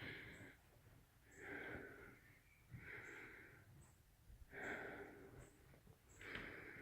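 Faint breathing close to the microphone, five soft breaths about a second and a half apart.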